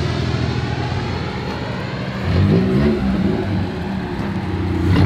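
A low-flying aircraft passes overhead with a slowly falling whine, over the rumble of idling car engines. A few short rev blips come about two seconds in and again near the end.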